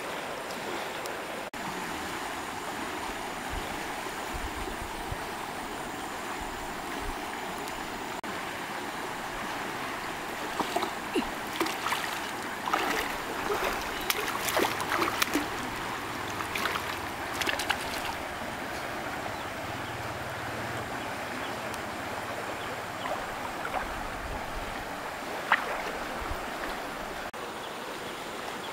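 Shallow river flowing steadily. From about ten seconds in comes a run of sharp, irregular splashes from a hooked fish thrashing at the surface as it is hauled in, with one more sharp splash near the end.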